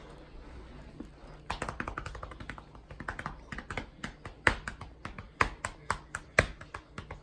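Hands tapping and patting on a man's back in quick, irregular strikes that start about a second and a half in and grow louder toward the end: loosening up the back muscles before a chiropractic-style back crack.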